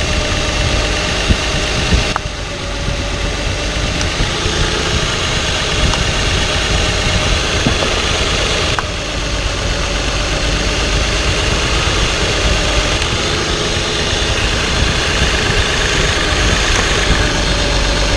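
Six-cylinder truck engine idling while its individual ignition coil connectors are unplugged one at a time. The engine note changes suddenly with a click about two seconds in and again about nine seconds in. This is a cylinder-by-cylinder test for a misfire: a coil whose unplugging barely changes the sound marks the dead cylinder, here cylinder 6.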